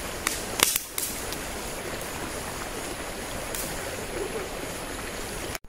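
Steady rush of a flowing stream, with a few sharp clicks in the first second and another about three and a half seconds in. The sound cuts off abruptly near the end.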